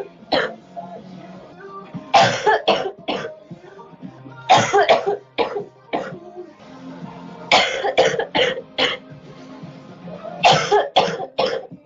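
A girl coughing in repeated fits, about one every three seconds: each a hard cough followed by two or three shorter ones.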